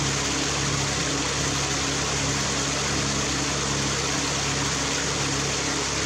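Small waterfall pouring over rocks into a pool: a steady, even rush of falling and splashing water.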